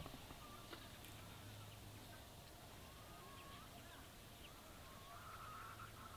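Near silence with faint bird calls wavering in pitch over a low steady hum.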